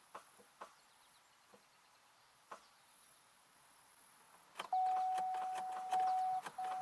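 Faint single clicks that thin out and stop. About two-thirds of the way in, a steady electronic tone from the 2002 Chevy Malibu's dashboard warning chime sounds for under two seconds, breaks briefly and comes back. The car has failed to restart, which the owner blames on the starter.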